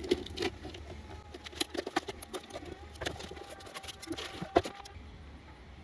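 Cardboard shipping box of antifouling paint being unpacked by hand: irregular rustling, crinkling and small knocks of cardboard and packing, with a sharper knock about four and a half seconds in.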